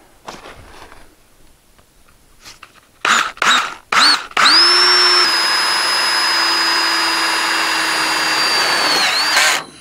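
Cordless drill driving a self-tapping screw through a galvanized steel pipe strap into a wooden baseboard. About three seconds in, the motor gives three short spin-up blips, then runs steadily for about five seconds before stopping near the end.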